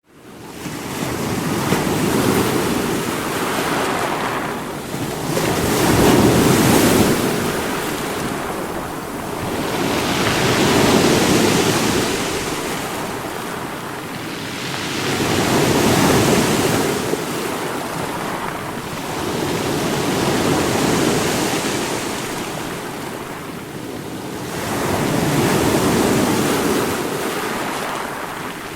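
Ocean surf breaking on a shore, a continuous rush of water that swells as each wave rolls in, about every five seconds.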